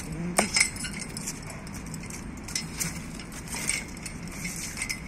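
Metal chain of a hanging tyre jangling and clinking as a dog hangs from the tyre and tugs it, with a couple of sharp clinks about half a second in, then irregular lighter clinks.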